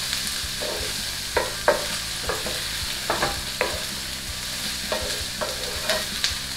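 Onion, celery, garlic and tomato paste sizzling in a frying pan, with a steady hiss, while a wooden spatula stirs them. The spatula scrapes and knocks against the pan at irregular intervals, roughly every half second.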